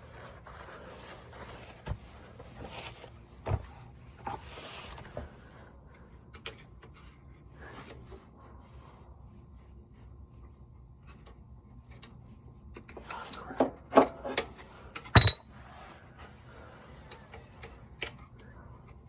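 Hand work on transmission parts: scattered light clicks and rubbing, then a cluster of sharp knocks about 13 to 15 seconds in, the loudest near 15 seconds.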